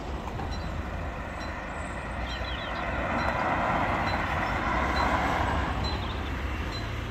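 A car driving over the level crossing, its tyre and engine noise swelling to a peak about five seconds in and then fading, over a steady low rumble of traffic and wind.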